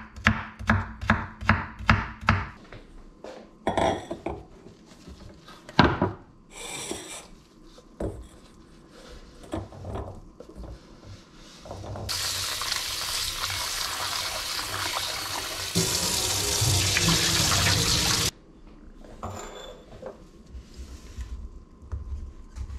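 Chef's knife chopping potato slices on a bamboo cutting board, quick regular strokes for the first couple of seconds, then scattered knocks and scrapes. Later a kitchen tap runs into a stainless steel sink for about six seconds, growing fuller partway through, and cuts off suddenly.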